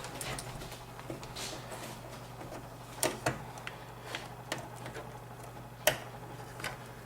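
Small plastic clicks and knocks of power-supply cable plugs being handled and pushed into a PC case, a dozen or so scattered taps with the sharpest about three and six seconds in, over a steady low hum.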